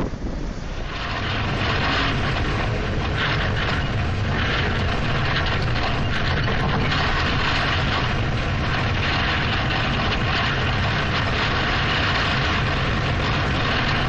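Steady loud roar of storm wind and rough sea, with a heavy low rumble, settling in about a second in after a brief dip.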